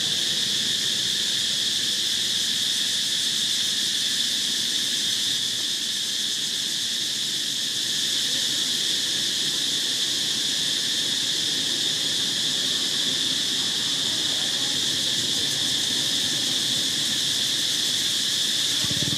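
Steady, high-pitched insect chorus that does not let up.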